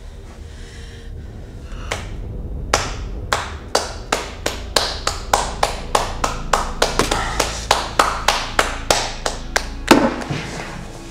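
One person clapping hands in a slow clap, starting about two seconds in with widely spaced claps that quicken to about three a second. It ends with one loudest clap near the end.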